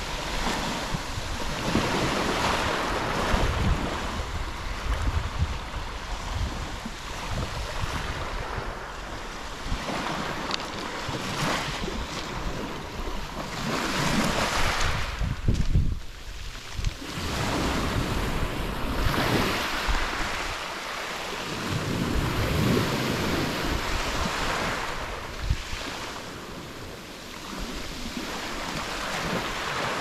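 Small Black Sea waves breaking and washing up a pebble beach, swelling and fading every few seconds, with wind rumbling on the microphone.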